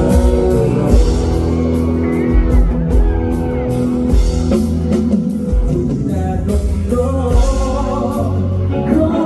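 A band playing a song with singing, drum kit and guitar, with a steady beat.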